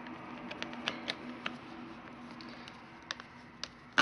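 Light, scattered clicks and ticks of a hand driver turning a long screw into the top belt guard of a small Sherline lathe.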